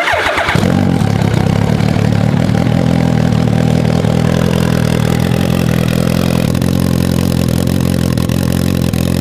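Turbocharged Suzuki Hayabusa 1300 inline-four motorcycle engine starting up. Its pitch drops within the first half second, then it settles into a steady idle.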